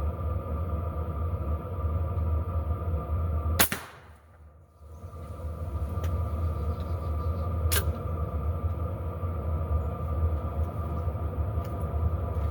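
AEA Challenger Pro .357 PCP air rifle firing a single sharp shot of a Polymag pellet about four seconds in, with a second, fainter sharp click about four seconds later, over a steady low rumble.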